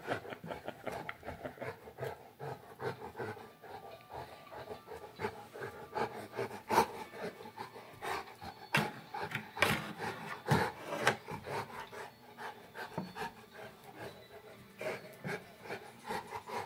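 Irregular rubbing and scuffling with scattered sharp knocks, the loudest bunched near the middle, from a Saint Bernard and a cat playing at close quarters.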